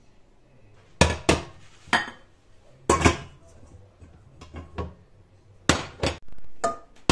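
A stainless steel pot and a glass bowl being handled and set down on a glass cooktop: a string of about ten sharp metallic clanks and clinks.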